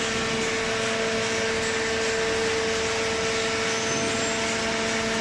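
A machine running steadily: a constant hum with a steady hissing noise over it, unchanging throughout.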